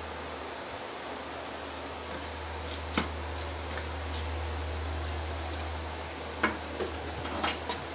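A low steady hum, a little stronger mid-way, with a few light clicks and knocks: two about three seconds in and several near the end.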